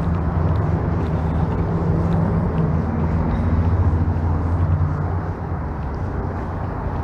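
Low engine rumble of a passing motor vehicle, steady and building toward the middle before easing off.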